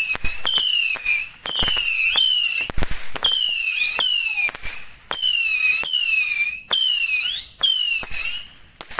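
Whistling fireworks going off in quick succession: about one shrill whistle a second, each sliding slightly down in pitch, separated by sharp cracks.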